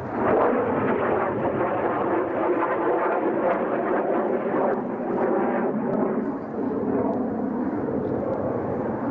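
A fighter pilot's heavy breathing under G load, picked up by the oxygen-mask microphone and heard over an aircraft radio with the press-to-talk switch held down. It comes as a loud, rasping rush of noise, cut off above the radio's narrow band, rising and falling with each breath.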